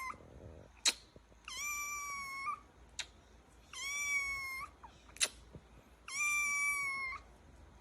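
A cat meowing three times, each a high, even call about a second long, with short sharp clicks between the meows.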